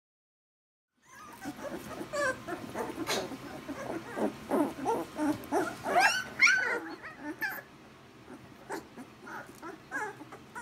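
Puppies playing and wrestling together, giving many short high-pitched whines and yips with small scratches and knocks. The calls start about a second in and die down after about seven seconds, leaving a few scattered clicks.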